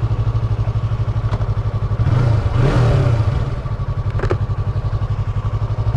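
A 2019 Yamaha R3's 321 cc parallel-twin engine running through an Akrapovic slip-on end can, with a steady pulsing exhaust note. The revs rise and fall briefly about two seconds in. There is a short click about four seconds in.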